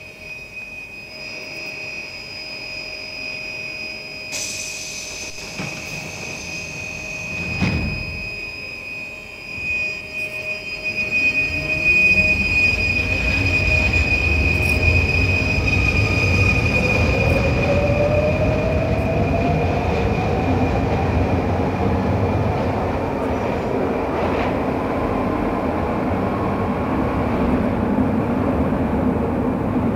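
Heavy vehicle noise: a steady high whine, then a low rumble that swells about a third of the way through, under a tone that rises slowly in pitch.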